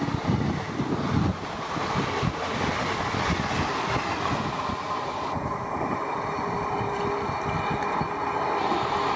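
Indian Railways train passing, its coaches' wheels clattering over the rail joints in a steady run of noise.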